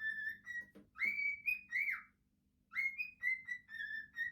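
Pet bird whistling a tune: a string of short, clear whistled notes, mostly held at about one pitch with a few quick slides, in two phrases with a brief pause about halfway.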